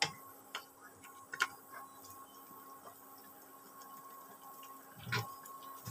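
Faint steady hum of an electric cooktop heating a pan of curry, with a few light clicks and taps scattered through, one near the start and one about five seconds in.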